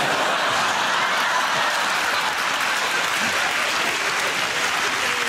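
Studio audience applauding at a steady level.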